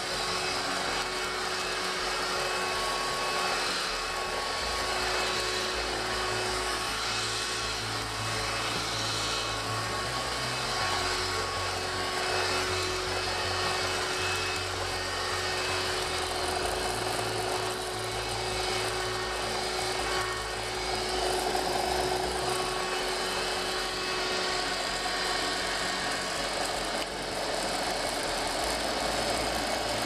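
SilverCrest SHSS 16 A1 14.4 V cordless stick vacuum running, its floor nozzle pushed back and forth over carpet: a steady motor whine over a rushing airflow, with a low rumble that shifts as the nozzle moves.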